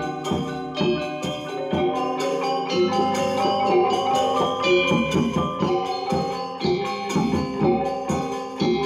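Balinese gamelan gong ensemble playing an instrumental piece (tabuh): bronze metallophones and gongs struck with mallets, many quick strikes over sustained ringing tones.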